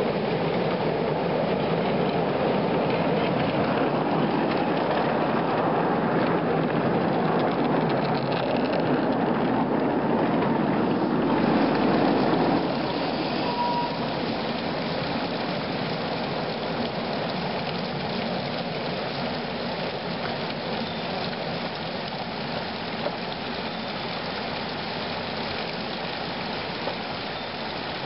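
Miniature live-steam locomotive running with its train, giving a steady rushing hiss of steam. The hiss drops and gets quieter about twelve seconds in.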